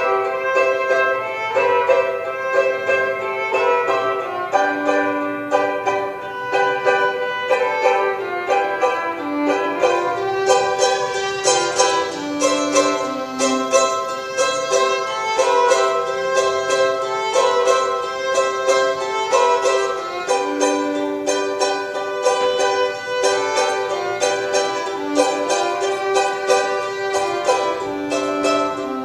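A violin and a small guitar-like plucked string instrument playing an instrumental tune together, with the bowed violin's long notes over the quick plucked notes of the small instrument.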